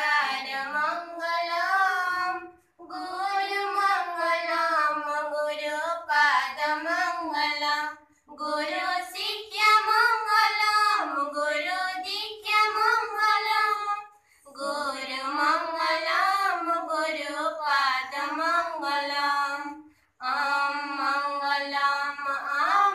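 Group of schoolchildren, girls' voices in front, singing together in unison without instruments, in long sung phrases with short breaks between them.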